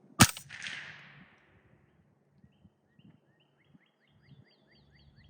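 A single shot from a delayed-blowback 9mm AR-15 fitted with a Dead Air Wolfman suppressor: one sharp crack just after the start, followed by a fading echo over about a second. From about two and a half seconds in, a bird sings a quick series of short repeated chirps.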